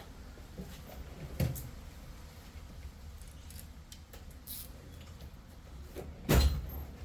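Hand tools and parts clicking and knocking as the carburetor is taken off a Yamaha Raptor 80 quad, with a sharp knock about a second and a half in and a louder one near the end, over a low hum.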